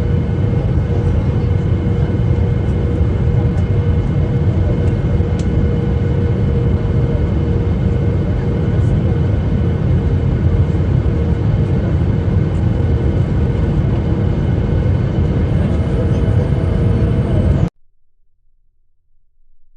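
Heavy rain pouring steadily, a loud, even noise that cuts off abruptly about two seconds before the end.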